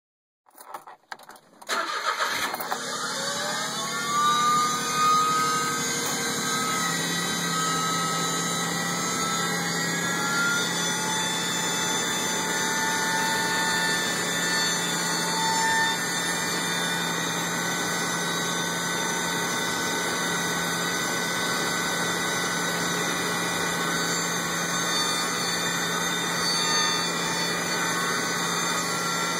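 Smart car engine clicking and cranking briefly, then catching and running steadily. Over the first few seconds after it catches, a high whine rises in pitch and then holds over the idle. The owner considers this start sound abnormal.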